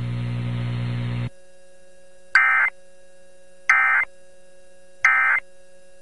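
NOAA Weather Radio broadcast hiss and hum that cuts out about a second in, then three short, identical digital data bursts about a second apart. These are the SAME end-of-message code that closes the tornado warning.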